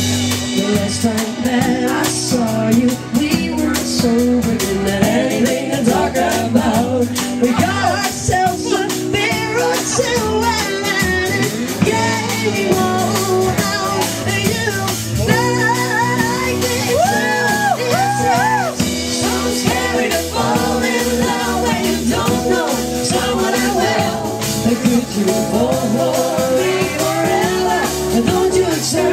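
Live pop-rock band playing, with a lead vocal singing over bass and drums.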